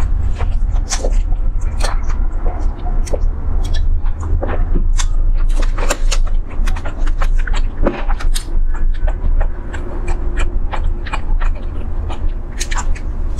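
Close-miked eating: chewing with many quick, irregular mouth clicks, and chopsticks picking food from a plastic tray, over a steady low rumble.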